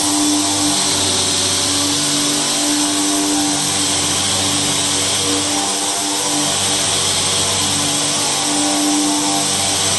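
Ginhong ZX-7.5 high shear inline mixer running: a steady machine hum and hiss from its electric motor and rotor-stator head, with a tone that swells and fades a little.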